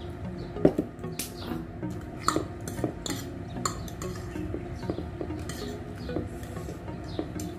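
Metal forks clinking and scraping against a ceramic bowl as noodles are stirred and twirled: a string of short, irregular clinks, the loudest about two-thirds of a second in.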